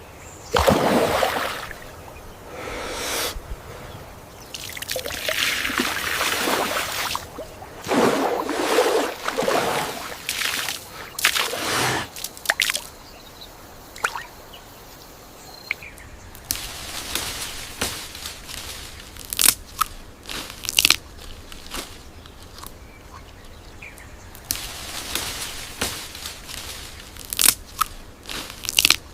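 Irregular crunching and rustling, broken by many sharp clicks and snaps.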